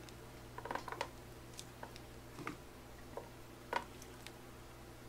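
A ladle stirring tteokbokki in an electric hot pot, giving a few faint scattered clinks and knocks against the pot, the sharpest about three-quarters of the way in, over a low steady hum.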